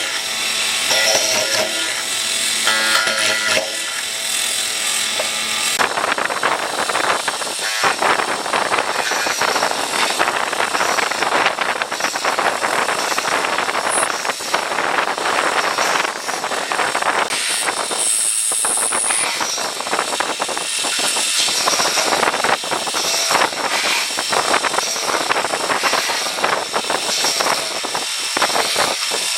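A power tool working wood: a loud, rough, steady grinding noise that starts about six seconds in and runs on, with two brief breaks.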